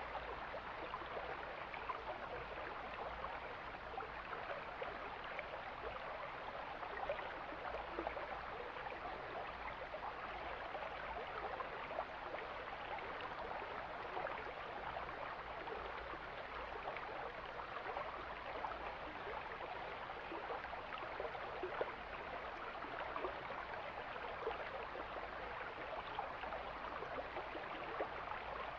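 Mountain stream flowing, a steady rush of running water.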